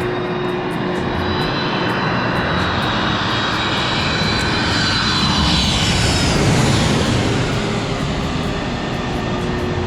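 Jet airliner passing low overhead on its landing approach. The engine noise swells to a peak about six to seven seconds in, with a high whine that falls in pitch as it passes over, then eases off.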